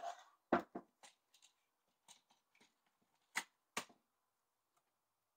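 Plastic top cover of a Poulan chainsaw being set back onto the saw's body: a handful of sharp plastic knocks and clicks, several in the first second and two more a little past three seconds in.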